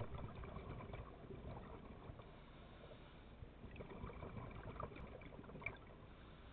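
Underwater reef ambience heard through a dive camera's housing: a faint steady hiss with irregular crackling clicks, busier in the first couple of seconds, and one sharper click about five and a half seconds in.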